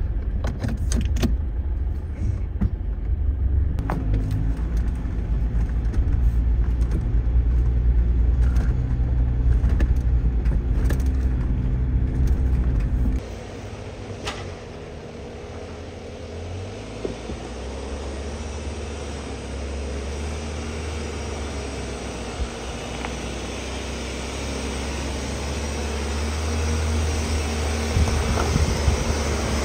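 Four-wheel drive vehicle driving: a steady, loud low engine and road rumble that drops abruptly about thirteen seconds in to a quieter, hissier rumble, with a few brief clicks and rattles.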